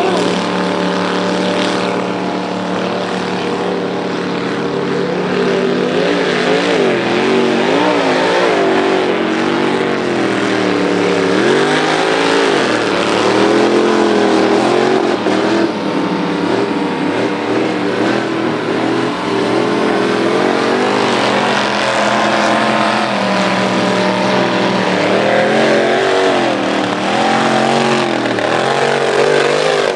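Mud-racing pickup truck's engine at full throttle, its pitch rising and falling again and again as the throttle is lifted and reapplied around the track.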